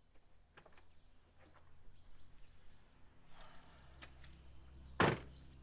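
A car door shut with a single solid thud about five seconds in, over faint outdoor ambience with a few light bird chirps.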